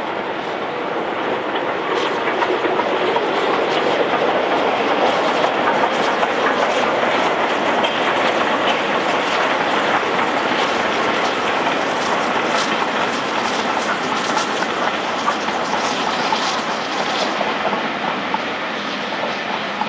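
LNER K1 2-6-0 steam locomotive and its coaches running past: a steady train noise, with wheels clicking over rail joints in the second half.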